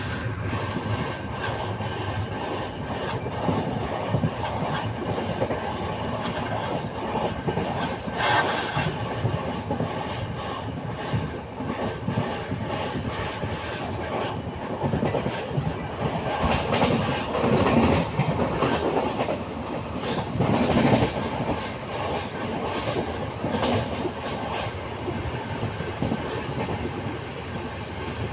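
Passenger train running at speed, heard from inside the coach by a barred window: the steady rumble and rush of wheels on the rails, broken by repeated clicks of the rail joints.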